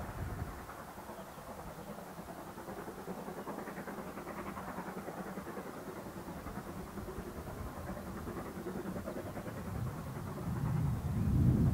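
LMS Ivatt 2MT 2-6-2 tank locomotive working a passenger train, its steam exhaust beating rhythmically. A low rumble swells near the end.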